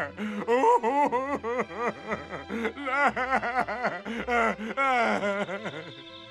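A puppet character's exaggerated comic sobbing: a pitched voice wailing in quick, rhythmic gasping pulses, about four or five a second, that fades out near the end.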